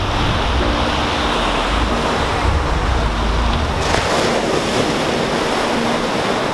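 Sea surf breaking and washing up onto a sandy beach: a steady rush of waves and foam.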